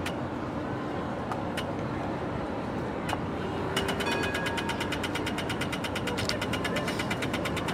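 Mirrorless camera shutter (Sony A7R V) clicking a few single frames, then firing a rapid continuous burst from about four seconds in, over steady city traffic noise.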